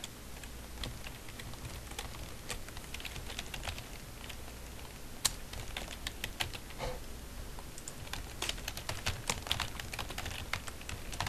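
Computer keyboard being typed on: irregular runs of key clicks, thicker near the end, with one sharper click about five seconds in, over a low steady hum.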